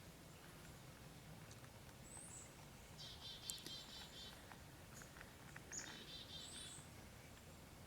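A songbird singing faintly, twice: each phrase a high slurred note followed by a fast trill of repeated notes. Scattered faint small ticks sound in between.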